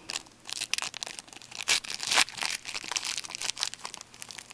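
Trading card pack wrappers being torn open and crinkled by hand: a dense run of crackling rustles, with louder rips around the middle.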